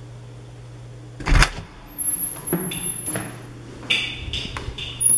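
A door being unlatched and opened: a sharp clunk about a second in, then clicks and rattles from the handle and latch, with a thin high squeak for about a second and a second clunk near the end.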